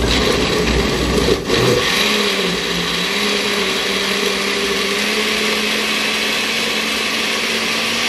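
Countertop blender running at full speed, grinding a thick chile sauce. Its motor pitch rises slightly about two seconds in, then holds steady.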